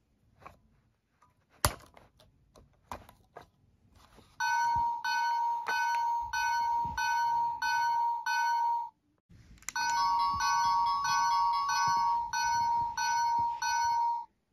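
Thomas & Friends Hatt St. toy level crossing's electronic bell ringing a steady repeating ding, about three dings every two seconds. It starts about four seconds in, after a few clicks of the wooden toy being handled, stops briefly about halfway, and then rings again.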